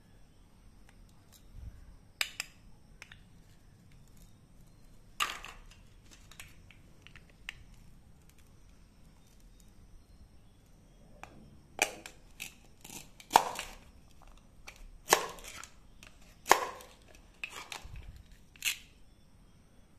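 Plastic toy cut-apart fruit with hook-and-loop-joined halves being handled and sliced with a plastic toy knife: sharp clacks and brief rasps as the halves are pressed together and pulled apart. A couple come early, then a quicker run of six or seven louder ones in the second half.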